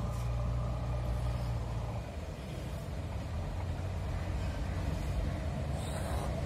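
Low, steady rumble of an Indian Railways electric locomotive and its passenger train approaching along the track.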